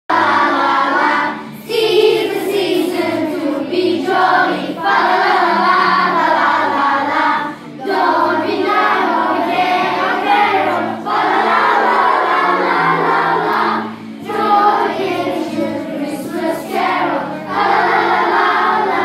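A group of primary-school children singing together in unison as a choir, in phrases of a few seconds with short breaks between them.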